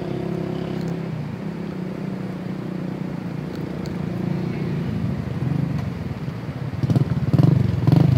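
An engine running steadily, louder and more uneven from about seven seconds in.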